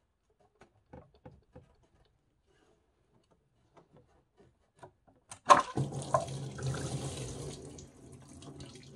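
A few faint clicks as the water pump is worked loose from a BMW M52/M54 straight-six, then coolant suddenly gushes out of the engine's water pump opening a little past halfway and splashes below, slowly tapering off.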